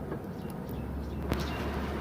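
Metal sewing machine parts being handled and fitted back together, with one sharp click about a second and a half in and a few small ticks, over a low steady hum.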